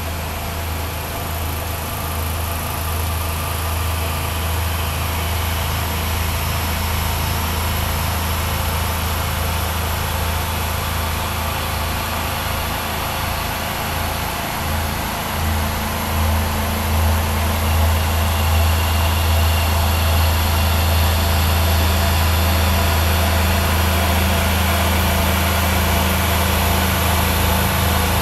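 Steady running of the machinery on a tomato factory's receiving and washing line: a low hum over a constant rushing noise, growing a little louder about halfway through.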